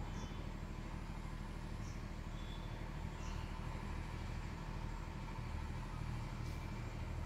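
Steady low electrical hum at mains frequency, 50 Hz with its overtones, from a home inverter running its 50 Hz output.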